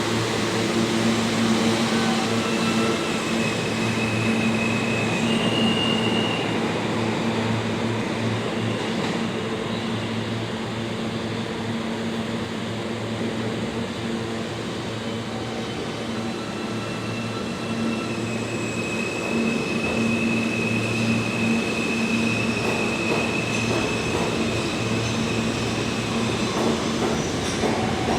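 New York City subway train running through a station, a steady hum and rumble of motors and wheels on rail, with high wheel squeal a few seconds in and again in a longer stretch about two-thirds of the way through.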